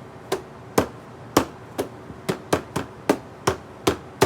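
A stick tapping on a box: about eleven sharp knocks, unevenly spaced at two to three a second.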